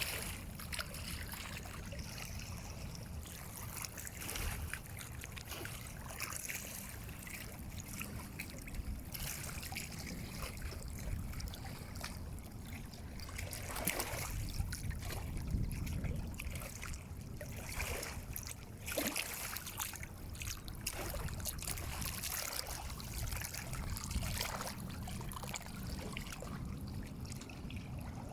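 Water trickling and lapping in a steady wash, with a few brief louder splashes around the middle.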